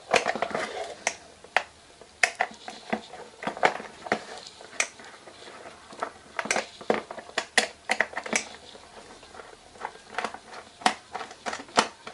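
A small Phillips screwdriver working screws out of a digital multimeter's plastic back case, with hands handling the case. The sound is a run of irregular sharp clicks and ticks, a few louder than the rest.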